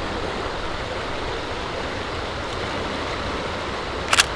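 A shallow river rushing steadily over its bed. Near the end, a short sharp mechanical click-whir: a Contax G1 35 mm film camera firing its shutter and motor-advancing the film.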